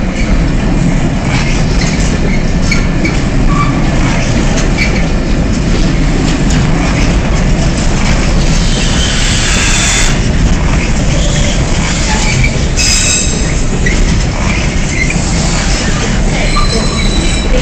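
Loaded intermodal container flat wagons of a freight train rolling past close by, with a steady loud rumble of wheels on rail. Brief high squeals from the wheels come a few times, around the middle and near the end.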